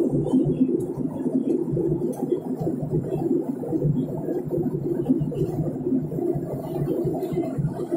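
Jet airliner cabin noise heard from a window seat during descent, a low rumble whose level rises and falls unevenly.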